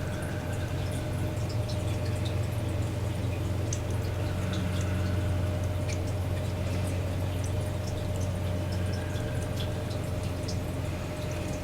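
Steady low hum with a faint steady tone above it, and many small scattered ticks.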